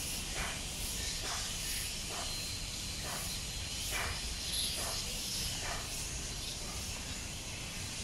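Outdoor ambience: a steady high-pitched hiss with a short call that repeats about every second for the first six seconds, over a low rumble.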